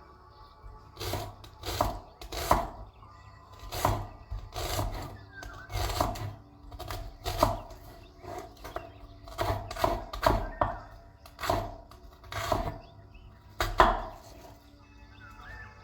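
Food being chopped on a wooden cutting board: about fifteen irregular, solid strikes, some in quick pairs, over faint background music.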